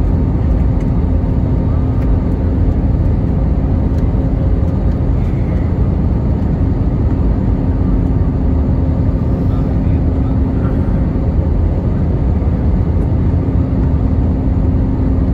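Steady cabin noise inside an Airbus A320-family airliner on approach: the constant roar of the engines and airflow, with a steady low hum running through it.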